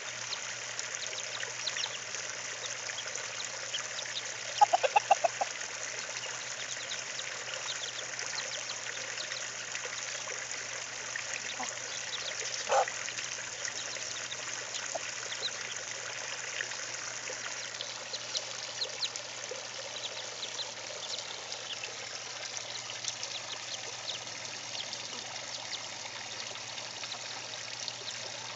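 Chickens cluck in a quick run of about five notes around five seconds in, with one louder call near the middle, over a steady hiss like running water.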